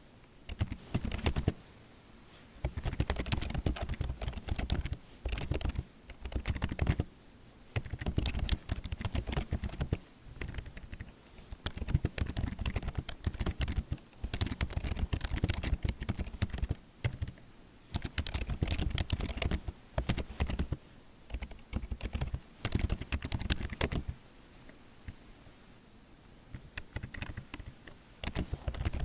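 Typing on a computer keyboard in bursts of rapid key clicks, broken by short pauses of about a second.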